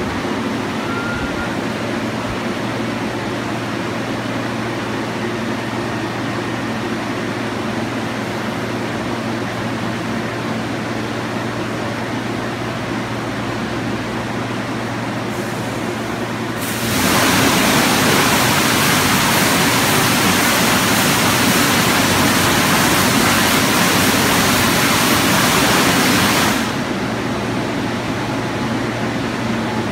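Automatic rollover car wash running with a steady machine hum; about halfway through, its spray jets come on with a loud hiss for about ten seconds and then cut off suddenly.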